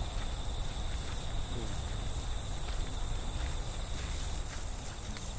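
Insects trilling steadily in the night, a continuous high chirring, over a low rumble on the microphone.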